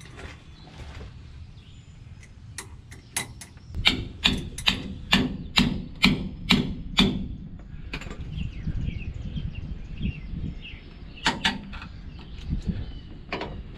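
Sharp metal knocks and clicks, about two a second, from a wrench working loose the hydraulic return-line fitting under the truck. A few more follow near the end.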